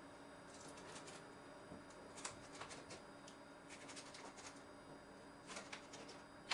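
Near silence with faint, scattered light clicks and scrapes of things being handled, in a few small clusters.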